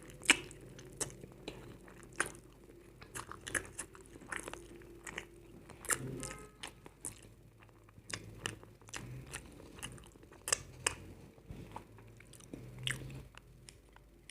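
Close-up mouth eating sounds: biting and chewing Indomie instant noodles with egg and potato crisps. Many sharp, irregular crunches come through, several a second at times.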